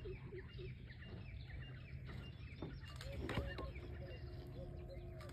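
Small birds chirping and calling, with many short, quick chirps over a steady low hum; a brief louder sound comes about three seconds in.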